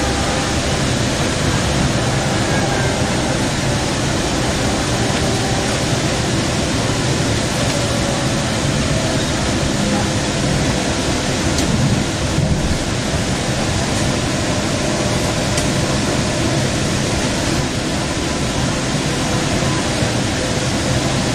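Steady rumble and hiss of a Central Link light rail car running at speed, heard from inside the car.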